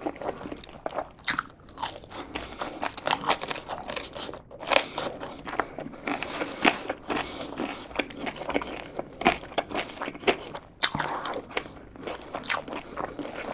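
Close-miked chewing of a mouthful of french fries: many short, irregular crunches and clicks.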